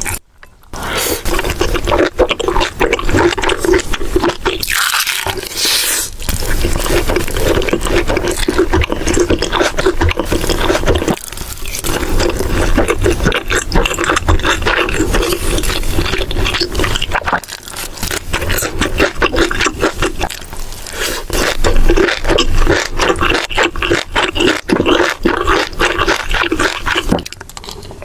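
Close-miked eating: loud, wet chewing and smacking mouth sounds, a continuous stream of small clicks and squelches, broken by a few short dips where one eating clip cuts to the next.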